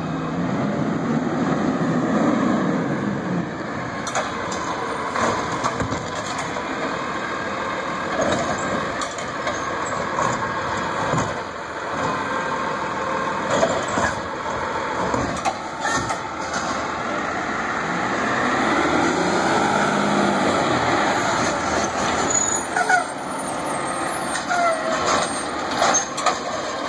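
Automated side-loader garbage truck with a Curbtender body working the curb: its diesel engine and hydraulic arm run steadily as the arm lifts and dumps wheeled carts, with sharp knocks of the carts banging against the arm and hopper several times.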